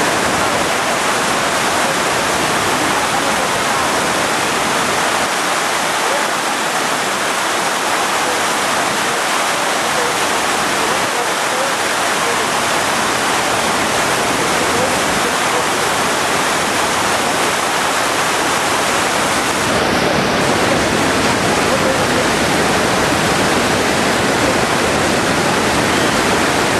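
Steady, loud rush of river water tumbling over rocks at a waterfall and cascade.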